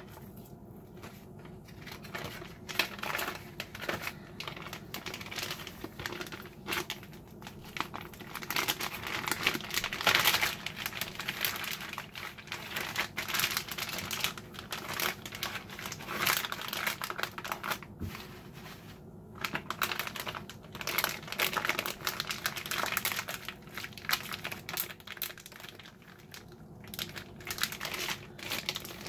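Zipper-top plastic freezer bag crinkling and rustling in irregular handfuls as a raw steak is slid into it and the bag is worked around the meat, loudest about ten seconds in.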